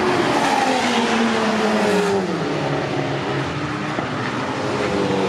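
GT race car engine passing close at speed, its note sliding down in pitch over about two seconds as it goes by, with more race cars running behind it.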